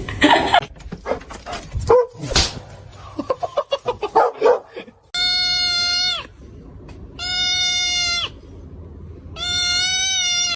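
An animal giving three long calls at an even pitch, each about a second long and about a second apart, after a few seconds of scattered clicks and quick ticks.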